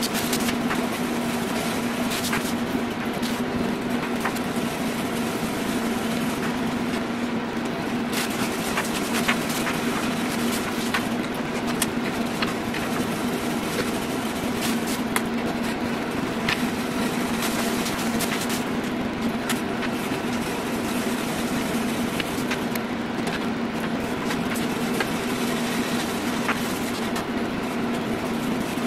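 Desktop CO2 laser engravers and their duct exhaust fans running steadily: an even hum with a constant low tone through it, dotted with small clicks and rustles of parts being handled.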